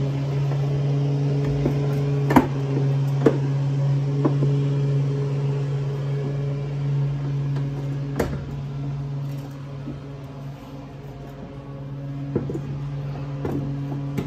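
A steady low machine hum, easing a little about two thirds of the way through, with a few sharp metal clinks as a car's front strut assembly is worked loose from the steering knuckle by hand.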